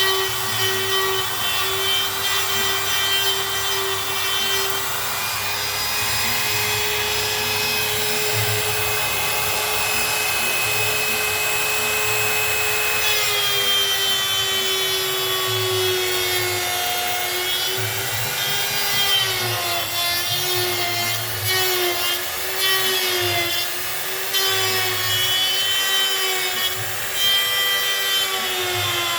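Electric wood router (trimmer) running and cutting a hinge recess into a wooden window frame. Its high-speed motor whines steadily at first. From about halfway the pitch dips and wavers again and again as the bit bites into the wood under load.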